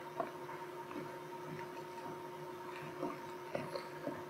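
Quiet room tone in a large hall: a steady electrical hum with scattered faint taps of footsteps on the wooden gym floor.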